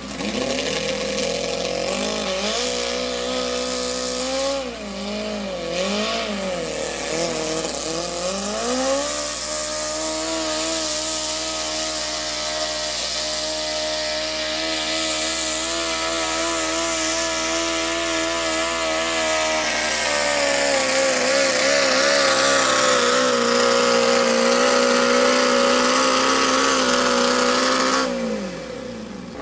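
Modified garden tractor engine running at full throttle while pulling the sled. Its pitch wavers and climbs over the first several seconds, then holds high and steady, dips a little past the middle, and falls away near the end.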